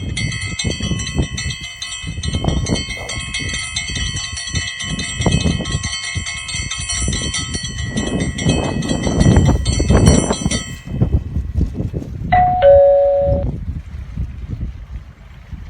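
Strong wind buffeting the microphone in gusts, under a steady bright ringing tone that holds for about eleven seconds and cuts off suddenly. A short two-note chime, high then lower, follows about a second later.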